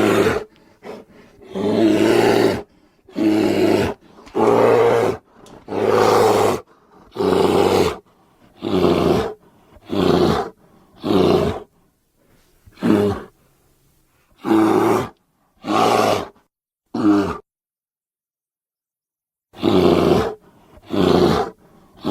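Giant short-faced bear (Arctodus) creature sound effects: a string of short bear roars and growls, each under a second, about fifteen in all. There is a pause of about two seconds near the end.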